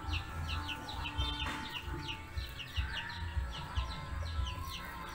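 Chicks peeping in a steady run of short falling peeps, about three a second, over a low rumble.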